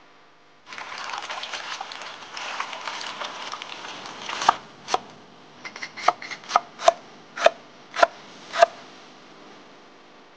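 Wet, crackly rustling of pickled mustard greens being handled for a few seconds, then a kitchen knife chopping the pickled greens on a wooden cutting board: about ten sharp chops at an uneven pace, a few of them quick together in the middle.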